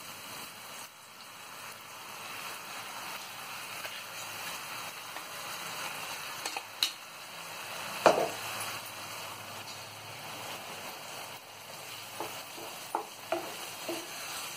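Oil sizzling in a frying pan around a wet ground ridge-gourd paste just added to fried onion, with a wooden spatula stirring and a few sharp knocks on the pan, the loudest about eight seconds in.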